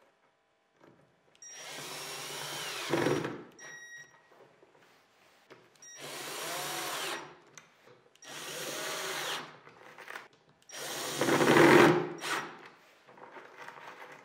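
Cordless drill driving screws through a swivel caster's steel mounting plate into plywood, in four separate runs of one to two seconds each. Each run gets louder toward its end as the screw seats, and the last is the loudest. Light clicks of handling come between the runs.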